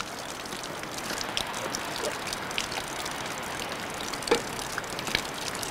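Steady hiss of falling water, with a few louder single drops.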